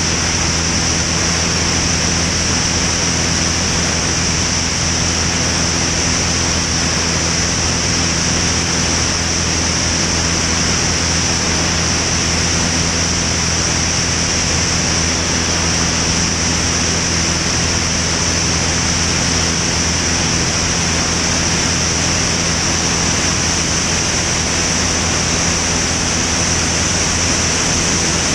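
Van's RV-10 light aircraft in flight: a steady loud rush of airflow over a low, even drone from the piston engine and propeller, unchanging throughout.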